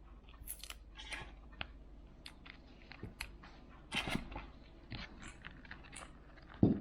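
Irregular small clicks, scratches and crackles of hands and tools working on a Huawei P smart 2019 smartphone as it is taken apart and its tape peeled off, with a louder crackle about four seconds in and a dull knock near the end.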